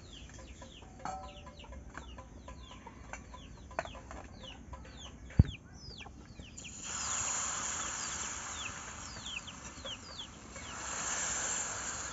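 Chicks peeping over and over in short, falling chirps. There is a sharp knock about five seconds in, and a hiss swells up twice in the second half.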